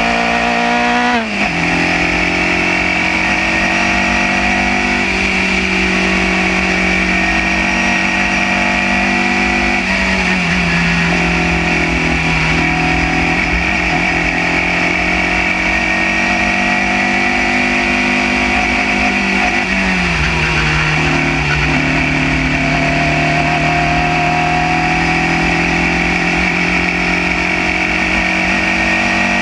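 Onboard sound of a Formula Junior single-seater racing car's engine running hard at speed. The pitch climbs, then drops sharply with a gear change about a second in, and dips again briefly near ten seconds and near twenty seconds before rising back.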